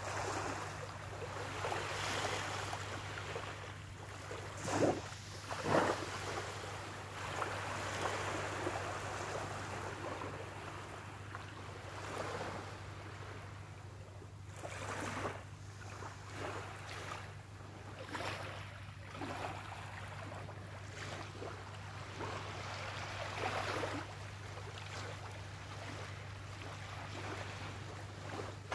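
Small, gentle waves lapping and washing up a sandy shore, swelling and fading every few seconds over a steady low hum. Two brief louder noises come about five and six seconds in.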